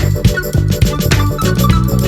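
Upbeat background music with a steady beat, a bass line and short synthesizer notes.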